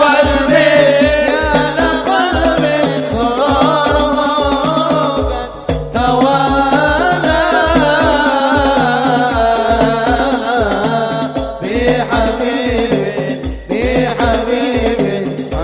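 A man singing an Arabic sholawat through a microphone in long, ornamented, wavering phrases, over a steady hadroh hand-drum beat of about three to four strokes a second. The singing breaks off briefly twice, near the middle and near the end.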